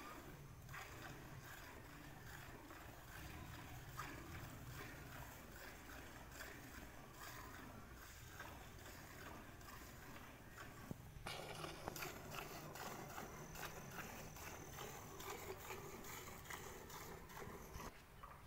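Faint, rhythmic squirts of milk hitting a steel bucket as a cow is milked by hand, the strokes growing stronger in the second half.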